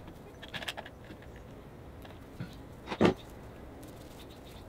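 Faint rustling and ticking as rope is wound and pressed onto a hot-glued tree trunk by hand, with one short knock about three seconds in.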